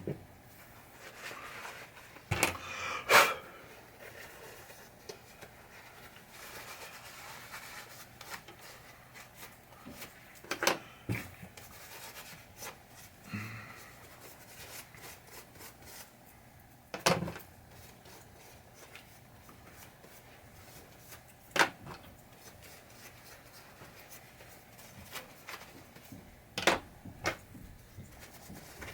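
A cloth wiping down small pinball parts with rubbing alcohol, to strip glue, oil and residue before gluing: soft rubbing, broken by several sharp clicks and knocks as parts and the bottle are handled.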